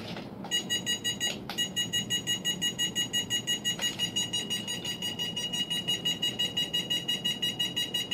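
Fast, even electronic beeping from a Fast F4 quadcopter and its remote controller, about five high beeps a second. It starts about half a second in, with a brief break near a second and a half.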